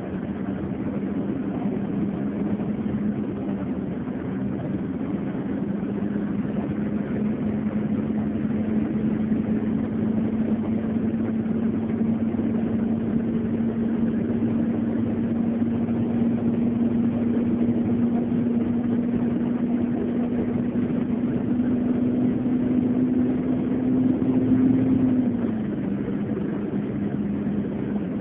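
Engine and road noise of a moving road vehicle heard from inside its cabin: a steady drone whose pitch creeps up slowly, then drops suddenly about twenty-five seconds in.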